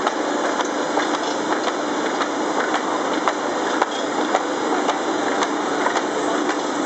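Srida film laminating machine running: a steady mechanical hum and whir with frequent irregular clicks and ticks as printed sheets feed through its rollers and conveyor.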